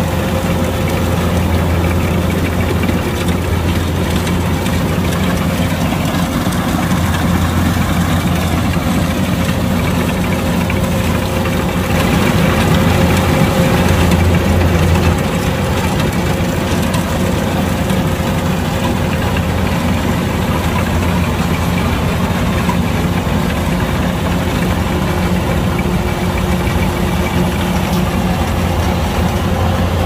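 Kubota DC-105X rice combine harvester's diesel engine running steadily, a little louder for about three seconds some twelve seconds in.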